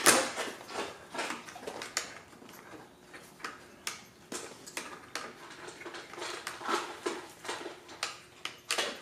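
Irregular sharp clicks and short scrapes of a screwdriver tip working against the top cap of a caster housing, prying the cap off. The loudest click comes right at the start.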